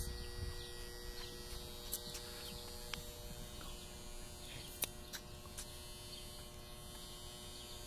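Steady electrical hum from metal halide floodlights warming up just after switch-on, with a few faint ticks.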